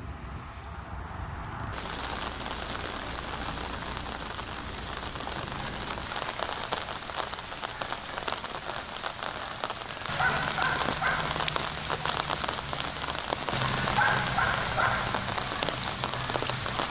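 Heavy rain falling on floodwater: a dense patter of drops that comes in about two seconds in and grows louder around ten and fourteen seconds in, with a faint low hum under the louder stretches.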